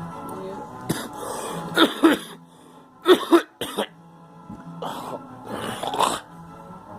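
A girl coughing in three bouts of several coughs each, the loudest coughs about two and three seconds in, with background music underneath.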